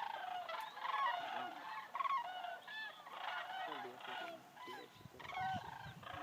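A flock of geese honking, many short calls overlapping one another.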